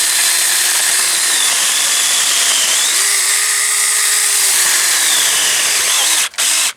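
Saker 20-volt cordless mini electric chainsaw running and cutting through a dried maple log, a steady saw noise with a motor tone that shifts in pitch as it bites into the wood. It breaks off briefly a little after six seconds, runs again for a moment, then stops as the blade gets pinched in the cut.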